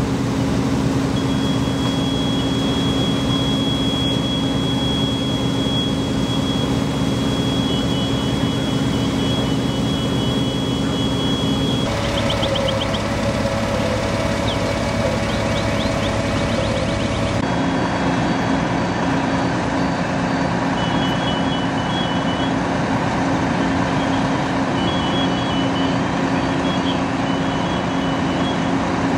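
Fire trucks' diesel engines running steadily, a constant low hum. A high electronic beeping sounds over it, with a steady high tone in the first half and short repeated beeps later on.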